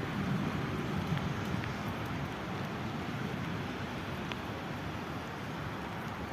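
Steady rain falling, with a low rumble underneath and a few faint, brief high-pitched sounds.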